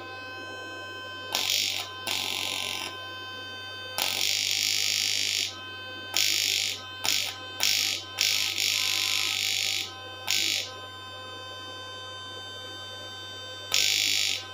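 Home-built 3000-watt fish shocker buzzing with its electrodes in water. A loud, high-pitched buzz switches on and off in about nine irregular bursts, some a fraction of a second and the longest about a second and a half, over a steady low hum.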